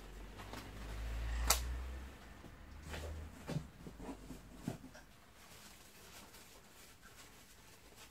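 Handling noise while unpacking: a low rumble for the first three seconds, a sharp click about a second and a half in, and a few lighter taps up to about five seconds in, then faint room tone.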